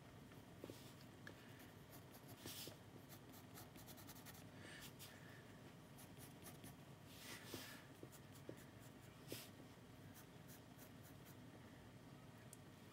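Faint scratching of a graphite pencil on sketchbook paper, drawn in short, uneven strokes with a few firmer ones.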